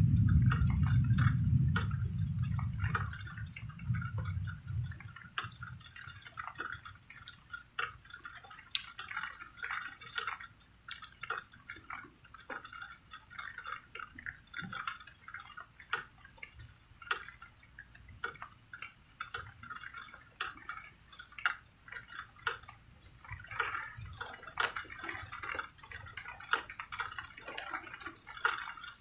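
Low rumble of thunder, loud at first and fading away over the first five seconds, over rain falling in irregular drips and patters.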